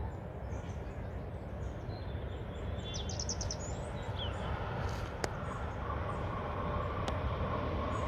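Outdoor ambience: a steady low rumble that slowly grows louder, with a quick run of short bird chirps about three seconds in.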